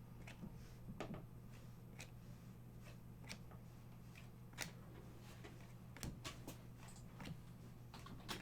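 2020 Panini Prizm football trading cards being handled and flipped through, giving soft, irregular clicks and rustles, over a low steady hum.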